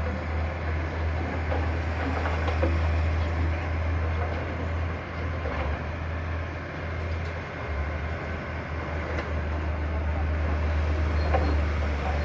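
Crawler bulldozer's diesel engine running steadily under load, with its steel tracks clattering and scattered knocks of stone.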